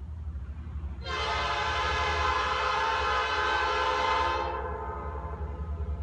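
Diesel locomotive air horn on Norfolk Southern EMD SD40-2 No. 6103 sounding one long, chord-toned blast at a grade crossing. It starts about a second in and fades out about three and a half seconds later, over a steady low rumble.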